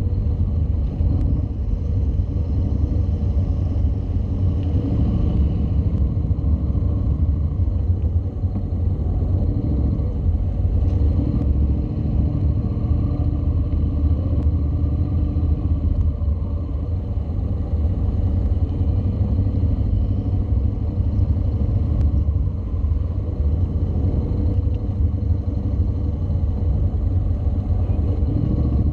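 Honda NC700's parallel-twin engine running at low speed as the bike is ridden slowly through tight turns, heard from a camera on the bike, with a steady low rumble.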